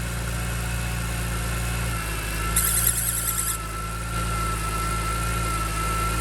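2005 BMW E46 M3's S54 straight-six engine idling steadily with a thin, steady whine, and a high-pitched squeal lasting about a second a little before the middle. The squeal is a new noise of unknown cause.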